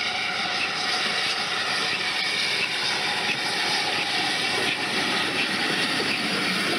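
GWR steam locomotive hauling its train past at close range, working steadily: a continuous loud roar of exhaust and running gear.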